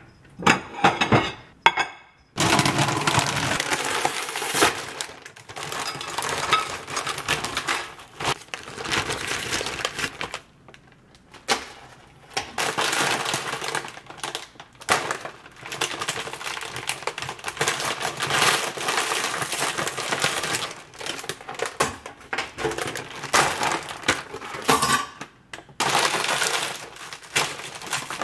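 A plastic bag of tortilla chips crinkling and crackling as it is handled, its top twisted and clipped shut. The crinkling comes in long stretches with short pauses.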